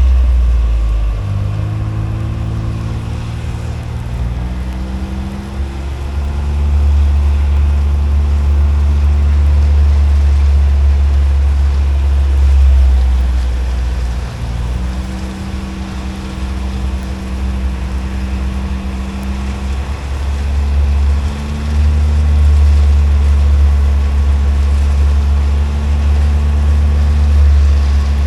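Combine harvester running steadily while cutting soybeans, a heavy low rumble with an engine note that shifts in pitch a few times.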